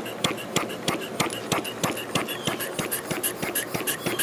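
Homemade piston steam engine running on compressed air at a couple of pounds of pressure, beating out a steady, even rhythm of sharp exhaust pulses and valve clicks at about three a second.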